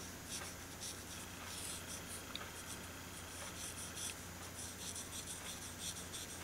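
Felt tip of a Stampin' Blends alcohol marker rubbing on paper in short, irregular colouring strokes, faint and scratchy.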